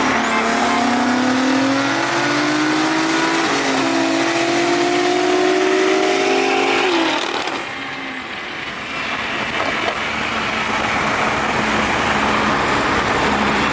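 A car engine accelerating hard, its pitch climbing and dropping back at gear changes about three and a half and seven seconds in. It then eases off and settles to a steadier running sound.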